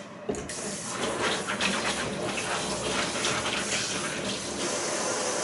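Water running from a kitchen tap into a stainless-steel sink, turned on suddenly and running steadily with a splashing rush.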